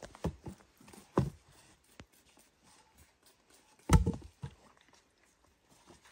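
Wooden logs knocking together as they are handled and set back in place, a few separate knocks with the loudest about four seconds in.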